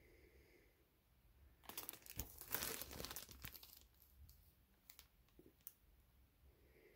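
Thin plastic bag crinkling around a CGC comic slab as it is handled and turned over, for about two seconds, followed by a few faint clicks.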